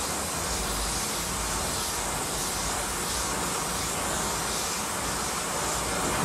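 Gas torch flame hissing steadily as it heats the steel end of a leaf spring pack, softening the open spring clamp so it can be bent closed.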